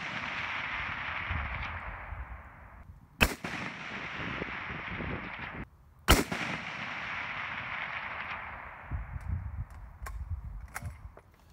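Two shots from an M1903 Springfield .30-06 bolt-action rifle, about three seconds apart, each followed by a long echo that rolls back off the range and fades. A few faint clicks near the end.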